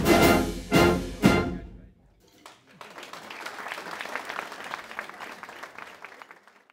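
A wind band of brass, saxophones and flutes plays its final three loud accented chords and stops. After a short pause the audience applauds, fading away near the end.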